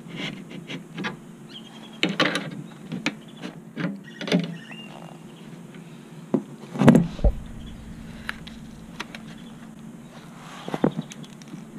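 An adjustable wrench clicking and scraping against a metal fitting on a radiator's plastic tank as the fitting is checked for tightness. Sharp clinks come in the first few seconds, then one heavier thump about seven seconds in and a few more knocks near the end, over a steady low hum.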